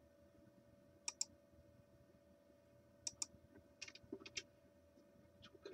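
Faint clicks of a computer mouse and keyboard shortcut keys, in quick pairs a second or two apart with a short cluster around four seconds in, as points are placed along an outline in embroidery design software. A faint steady hum sits underneath.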